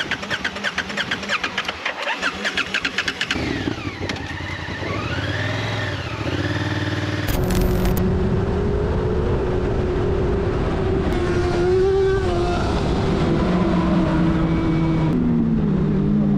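A Honda adventure motorcycle in deep mud: a fast, even chugging for about three seconds, then the engine revving up and down. After a sudden cut, a vehicle engine runs steadily on the road and rises in pitch near the end as it speeds up.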